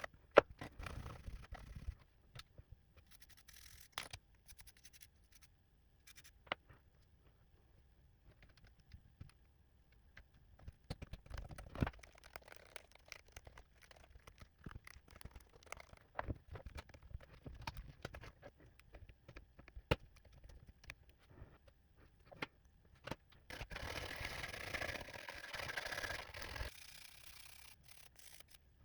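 Hands working on a 2015 MacBook 12-inch butterfly keyboard: scattered small clicks and taps with light scraping. Near the end comes about three seconds of steady scratchy brushing.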